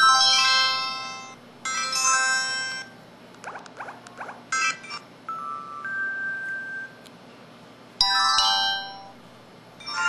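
Built-in sound effects of an LG-SD1500 mobile phone: a series of short electronic chimes and jingles, each lasting about a second, with brief pauses between them.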